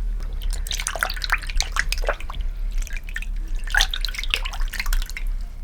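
Water splashing and dripping in a shallow bath as a small kitten is washed by hand: quick irregular splashes and drips in two spells, about half a second in and again past the middle.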